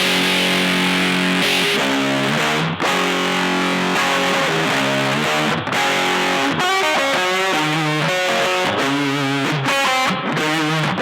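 Electric guitar played through an EarthQuaker Devices fuzz pedal, with held, fuzzy chords in the first half and a busier riff of fast-changing notes from about six seconds in.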